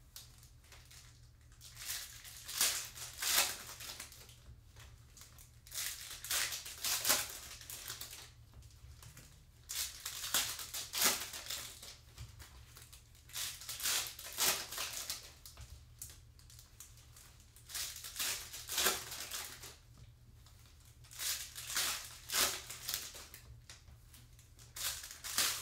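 Foil trading-card pack wrappers crinkling and rustling in gloved hands as packs are handled and opened, in irregular bursts every second or two.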